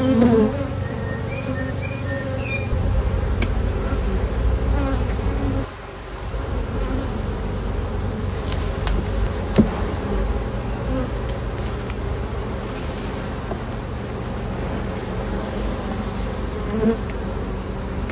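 A colony of honeybees buzzing steadily around an opened hive. The buzzing dips briefly about six seconds in, and there is one sharp click near ten seconds.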